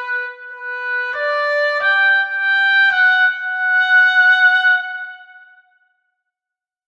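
Infinite Woodwinds virtual oboe, unprocessed apart from reverb, playing a short rising line of held notes. It steps up about a second in and again about two seconds in, holds the top note and fades out a little after halfway, followed by silence.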